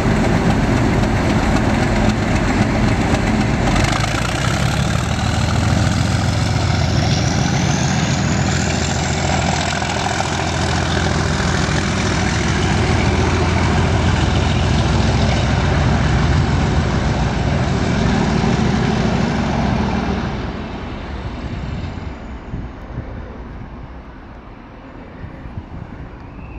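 Class 37 diesel locomotive's English Electric V12 engine running as it passes light engine and draws away, with a high whine rising slowly in pitch a few seconds in. The engine sound drops off about twenty seconds in as the locomotive goes into the distance.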